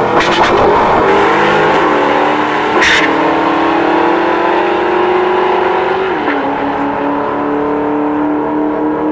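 Two drag-racing cars accelerating hard away down the strip, their engines climbing in pitch through the gears, the note dropping at an upshift about two seconds in and again about six seconds in. A sharp crack sounds about three seconds in.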